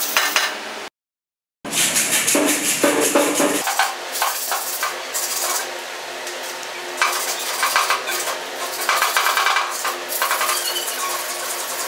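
Fingernails scratching and scraping on the painted steel fuel tank of a Royal Enfield Bullet as old decal pieces are picked and peeled off, in irregular scratchy spells. The sound cuts out completely for under a second about a second in.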